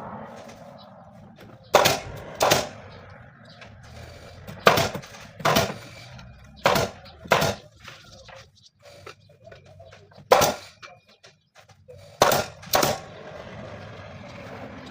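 Pneumatic upholstery staple gun firing: sharp shots, mostly in quick pairs (nine in all, one on its own), as fabric is stapled onto the armchair frame.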